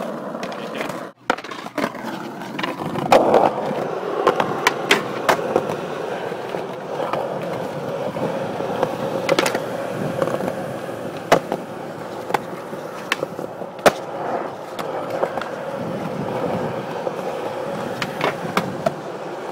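Skateboard wheels rolling steadily over concrete, with sharp clacks of the board striking the ground as tricks are popped and landed, about half a dozen times. The sound briefly cuts out about a second in.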